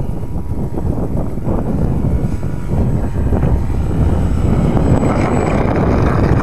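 Strong wind buffeting a head-mounted camera's microphone as a steady low rumble, with the faint thin whine of the ParkZone Visionaire's electric motor and propeller.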